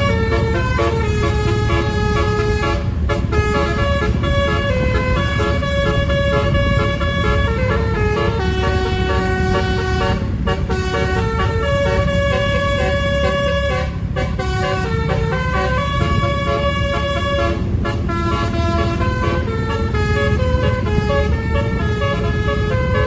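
Satria Jaya bus's basuri musical horn playing a melody of held notes that step from pitch to pitch, with short breaks between phrases, over a steady low rumble. The tune is pleasant, but the horn trumpets have a slightly odd tone.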